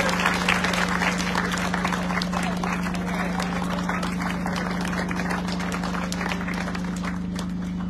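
Crowd applauding, the clapping thinning out and dying down toward the end, over a steady low hum.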